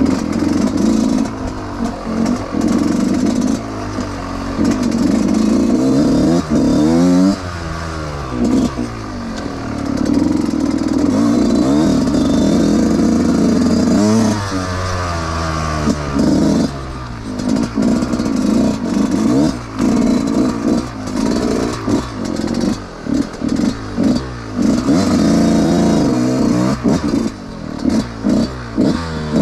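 Yamaha YZ125 two-stroke dirt bike engine revving up and down over and over as it is ridden off-road, with clattering and scraping from the bike over rough ground.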